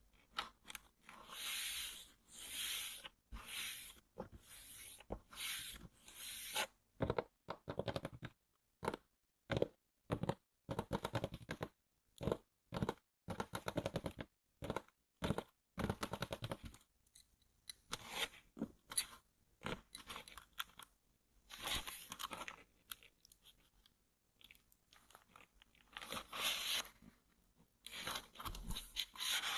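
Close-up handling of a headphone box and its packaging. First come regular scratching strokes, about one every 0.7 seconds, then a stretch of dense crackling and sharp taps, then sparser scratches with short pauses.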